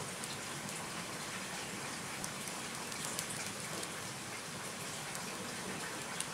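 Open wood fire crackling: a steady hiss with scattered sharp pops and snaps from the burning sticks.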